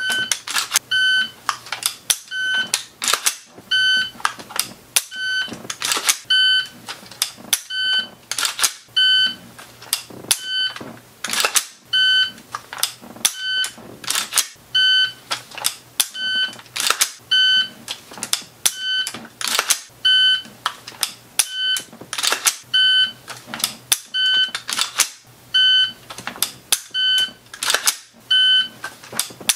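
Shot timer beeping in short, steady tones, start and par beeps repeating about every second, with sharp clicks and clacks between them from an AR-15's trigger snapping in dry fire and its charging handle being racked to reset it.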